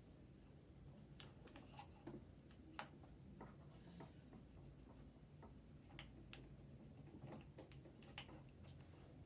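Near silence: a low steady hum with faint, irregular small clicks and taps scattered throughout.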